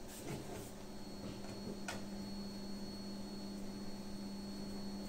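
A low steady hum, with faint clicks and scrapes of a screwdriver turning a small screw in a MacBook's bottom cover; one sharper click about two seconds in.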